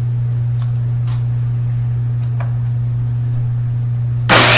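A steady low hum with a few faint clicks, then about four seconds in a table saw suddenly starts, much louder, with a high whine.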